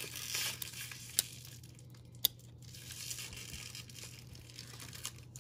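1994 Pacific Crown Collection baseball cards, stuck together with age, being slid and peeled apart by hand: a soft papery rustle with two sharp clicks about a second and two seconds in.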